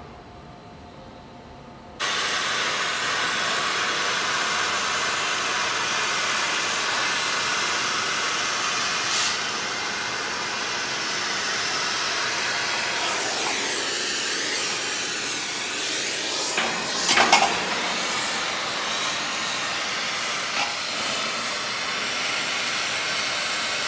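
A loud, steady hiss that starts abruptly about two seconds in, with a brief louder flare around seventeen seconds.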